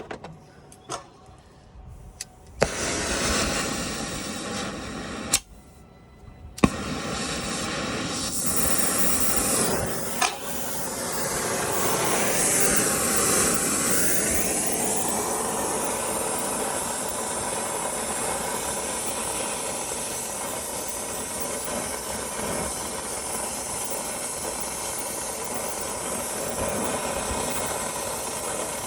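Brazing torch being lit with sharp clicks and then burning with a steady hiss as a copper refrigerant line joint is reheated to finish flowing the braze. The hiss starts a few seconds in, cuts out briefly, and comes back with another click.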